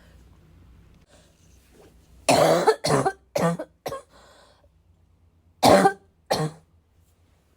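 A person's chesty cough: after a faint breath, a quick run of four coughs, then two more coughs about a second and a half later.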